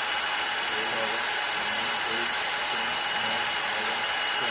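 Handheld electric drill running steadily, an HSS twist drill bit cutting into a metal plate, with a constant high-pitched motor whine over the steady cutting noise.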